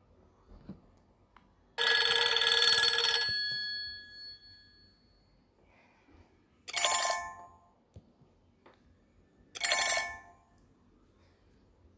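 Nokia Lumia 520 smartphone playing ringtone sounds through its speaker: a bell-like ring lasting about a second and a half, then two short matching chimes about three seconds apart.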